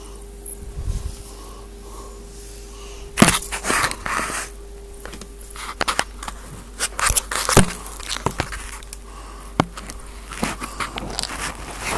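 Irregular scraping, rustling and clicking handling noise, as of the recording device rubbing and knocking against a hard surface close to the microphone. A faint steady hum runs underneath.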